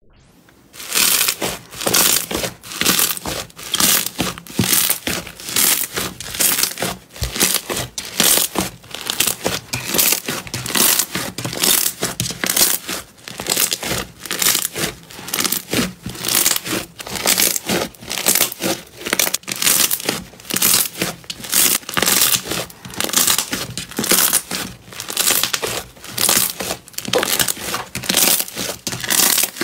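Large rainbow fluffy slime being kneaded and pressed by hand, crackling and crinkling with each squeeze, about two squeezes a second.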